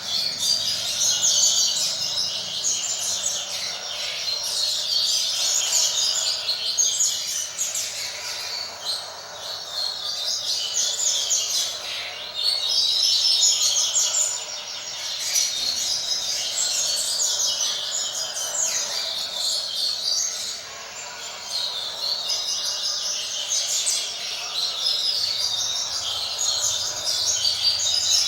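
Double-collared seedeater (coleiro) singing the 'roda de fibra' tui-tui song: long, rapid, high warbled phrases repeated with brief pauses every several seconds.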